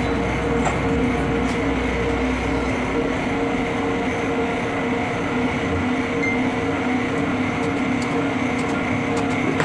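Tyre-changer machine running steadily while a new tyre is worked onto a motorcycle spoke rim, a continuous mechanical drone with a few steady tones in it.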